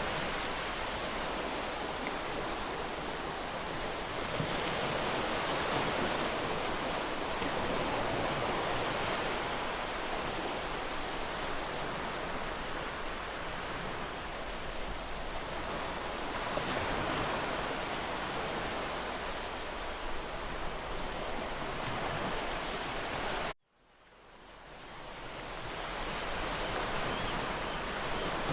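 Waterfall: a steady, even rush of falling water. About three-quarters of the way through it cuts out abruptly and fades back in over a few seconds, an edit or loop point in the recording.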